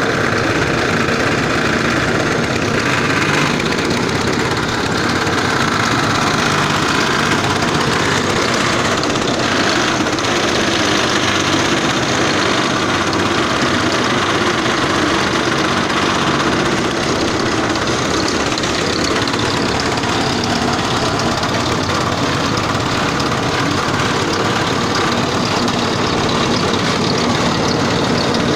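Workshop-built processing machine running steadily under its motor, with a continuous mechanical rattle and hum.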